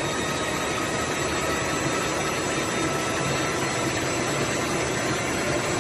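Flux-cored welding wire production line running at speed: a steady mechanical hum and hiss with a few faint steady tones.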